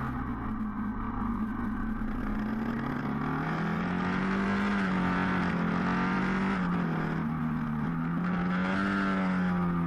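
1981 Honda XL500 café racer's single-cylinder four-stroke engine running under load as the bike is ridden, heard from a mount on the bike. The revs climb over the first few seconds, hold, dip about seven seconds in, climb again and fall off near the end.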